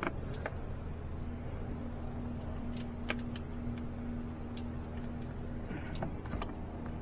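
A few light, scattered clicks and taps of metal parts and hand tools as a starter-motor bolt is worked toward its hole, over a steady low hum and a faint steady tone through the middle.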